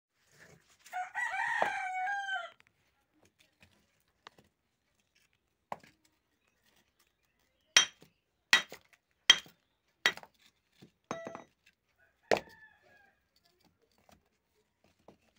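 A rooster crows once, about a second in. From about eight seconds in, a hammer strikes the rough stones of a stone foundation several times, sharp ringing clinks roughly a second apart, knocking the stones into place.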